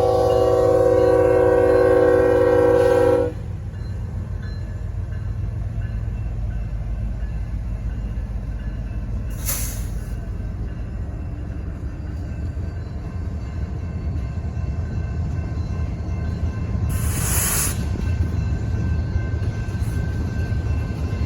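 Norfolk Southern locomotive's air horn sounding a held chord that cuts off sharply about three seconds in, followed by the steady low rumble of the moving train, with two brief hisses partway through.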